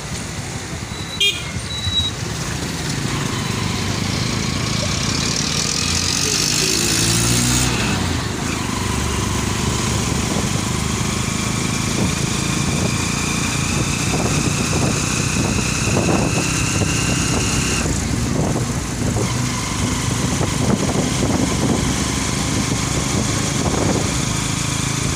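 Steady engine and road noise heard on board a moving vehicle in traffic. A faint high whine rises slowly through the middle, and two short knocks come near the start.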